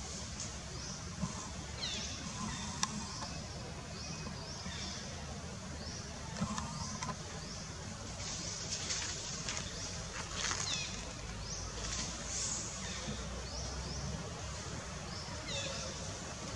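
Outdoor forest ambience: a steady low rumble and hiss with short high chirps of small birds scattered throughout, and a few faint clicks.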